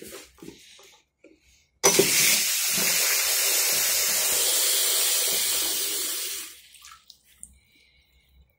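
Tap water running into a porcelain washbasin. It starts suddenly about two seconds in, runs steadily for about four and a half seconds, then is turned off.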